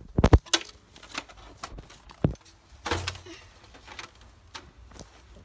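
Handling noise: a few sharp knocks and bumps as the opened CRT television set is moved and set down. The loudest come right at the start, with more about two and three seconds in and lighter taps near the end.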